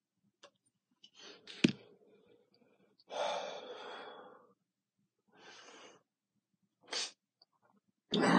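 A person smoking a cigarette, breathing in and out, with a sharp click about a second and a half in. About three seconds in comes a long exhale, followed by shorter breaths.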